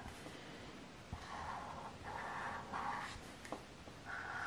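Crayola felt-tip marker scribbling on paper while colouring in, in repeated back-and-forth strokes of about a second each, with short pauses between them.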